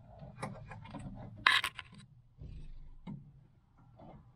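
Hands working at the brake pedal pivot and brake light switch under a car's dash: scattered light clicks and scrapes, with one short, sharper scrape about a second and a half in.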